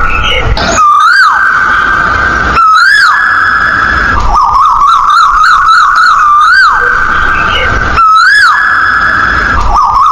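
Koel-call ringtone: loud whistled notes that rise and fall over a steady held tone, with wavering trills between them, repeating every couple of seconds.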